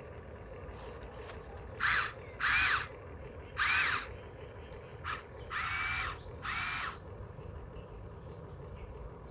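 Electric motors of a Huina 1593 RC excavator whining in six short bursts, each rising and then falling in pitch as the motor spins up and slows down.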